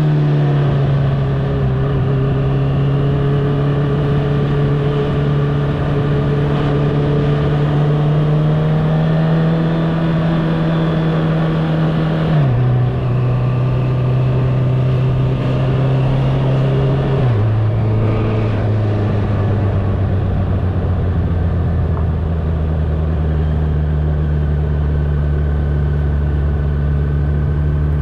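Honda CBR650R inline-four engine with an Akrapovič exhaust, running at a steady cruise. The engine note drops suddenly twice, about twelve seconds in and again about five seconds later, as the rider shifts up, then runs on at lower revs.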